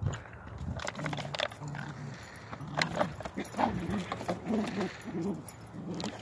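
Two dogs wrestling in play, with short, low vocal sounds repeated throughout and scuffling in dry grass and leaves.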